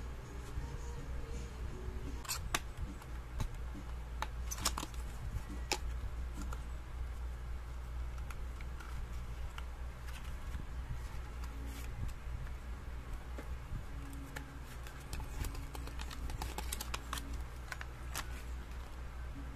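Hands opening a small paperboard box and unfolding the paper leaflet inside: scattered light clicks, taps and crinkles, over a steady low hum.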